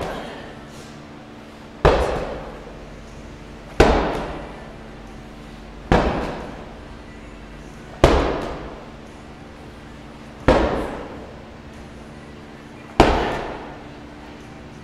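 Rotational medicine ball slams: a heavy medicine ball thrown down onto gym turf six times, about two seconds apart and spacing out a little near the end, each a sharp thud with a short echo.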